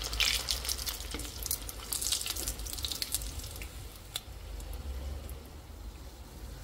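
Breadcrumb-coated fish balls deep-frying in hot oil, a steady crackling sizzle that thins out after the first few seconds.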